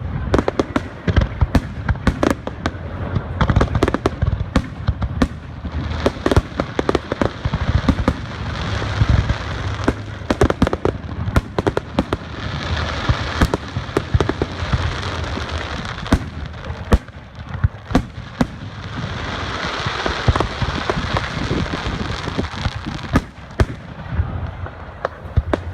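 Fireworks display: a dense run of booming aerial shell bursts, with stretches of hissing crackle from crackling shells in between.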